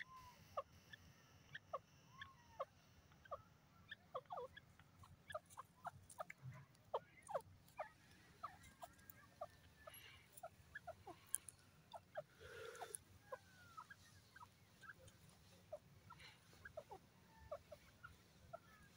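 Grey francolin giving faint, scattered short clucks and chirps, irregularly spaced, with a slightly louder rustly call about two-thirds of the way through.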